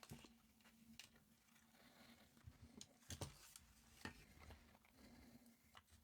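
Near silence: faint, scattered clicks and taps of small parts being handled on a workbench, over a faint steady low hum.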